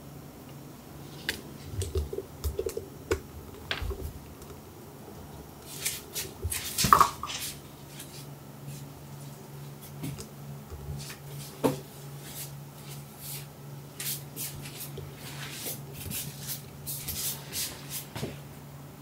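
Cats moving about on fabric bedding and a cat tower: scattered soft rustles and clicks, with a louder scuffle about seven seconds in and a sharp tick near the middle, over a steady low hum.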